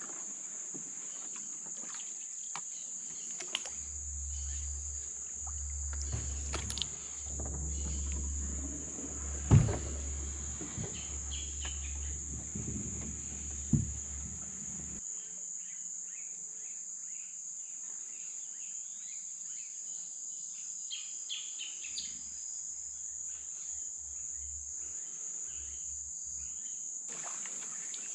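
Insect chorus, a steady high-pitched drone. Two sharp knocks stand out around the middle, and a low rumble runs through the first half.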